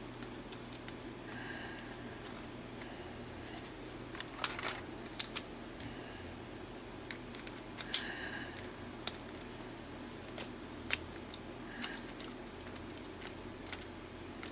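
Scattered light clicks and taps of hand tools and 3D-printed plastic hand parts being handled, the loudest about eight seconds in, with a few brief pitched chirps, over a steady low hum.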